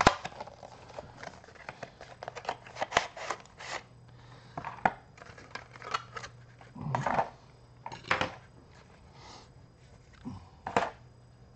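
Retail packaging of a new SSD being opened by hand: a string of irregular short clicks, crinkles and tearing of plastic and cardboard, with a few louder knocks about seven and eight seconds in.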